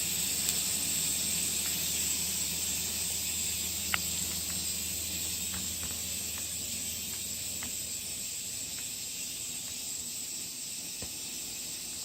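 Aerosol air-conditioner cleaner spraying with a steady hiss that slowly weakens, with a few faint ticks.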